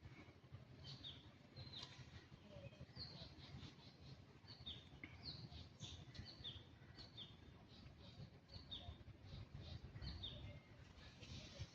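Faint bird chirping: short high chirps, each dropping in pitch, repeated about one or two a second, over a faint low rumble.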